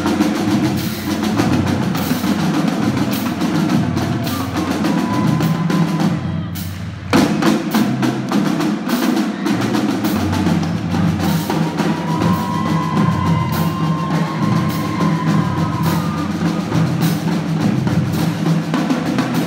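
School marching drumline playing a cadence on snare and bass drums with cymbals, a dense run of sharp strokes. The playing drops out briefly about six and a half seconds in, then comes back in all at once.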